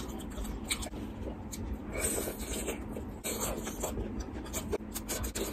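Close-up eating sounds: fingers scraping and mixing rice through chicken gravy on a metal plate, with chewing and mouth clicks, in many short irregular crackles.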